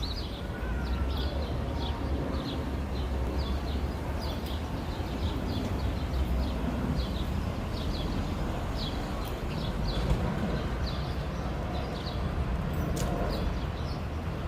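Low, steady rumble of a distant jet airliner, with a bird chirping over it again and again, about twice a second.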